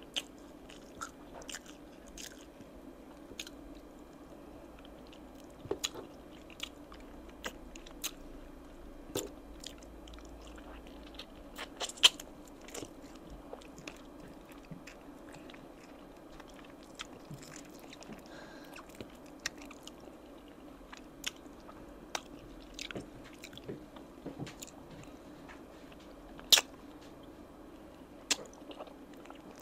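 Close-up eating of oven-roasted chicken wings by hand: irregular chewing and sharp wet mouth clicks over a faint steady hum, with a few louder clicks about twelve seconds in and near the end.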